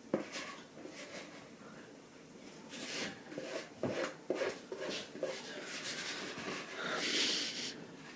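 Batter being scraped out of a mixing bowl into a cast iron skillet: a scattering of small clicks and knocks of utensil on bowl, with rasping scrapes, the longest and loudest about seven seconds in.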